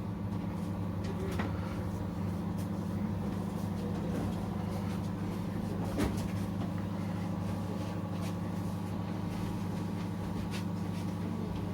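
Dawlance microwave oven running in microwave mode: a steady electrical hum with a few light clicks, the clearest about six seconds in. The oven runs but does not heat.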